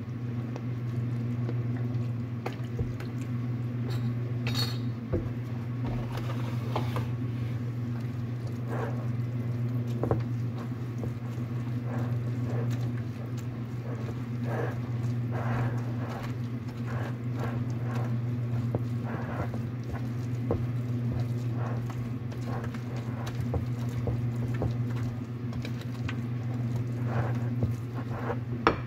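Pastry blender mixing cake batter in a glass bowl, with irregular scrapes, taps and clinks against the glass, over a steady low hum.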